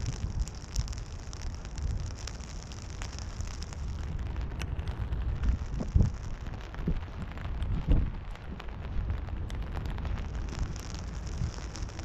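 Heavy rain falling, with many drops tapping close by on the umbrella and gusts of wind buffeting the microphone, the strongest about six and eight seconds in.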